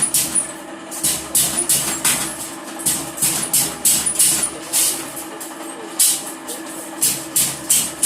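Spot welding machine firing again and again on wire, with short sharp crackles about twice a second at uneven spacing over a steady electrical hum.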